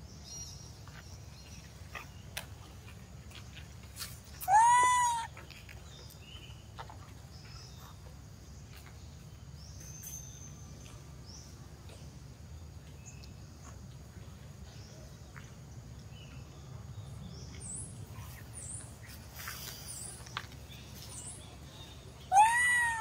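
A mother monkey crying twice: two loud, high, arched calls, each about half a second long, rising then falling in pitch. The first comes about four and a half seconds in and the second near the end. These are her cries for her missing baby.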